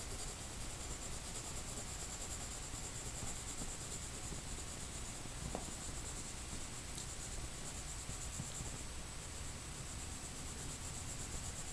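Faint scratching of pencil shading strokes on drawing paper, under a steady hiss with a thin high-pitched whine.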